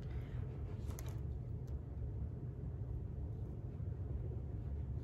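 Steady low background rumble, with a few faint clicks about a second in.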